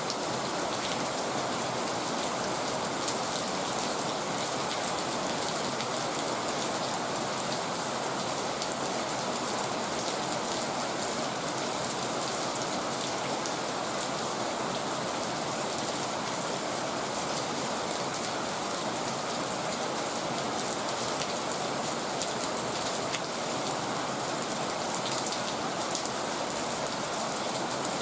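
Heavy rain falling steadily, a dense even hiss scattered with the small ticks of individual drops striking surfaces.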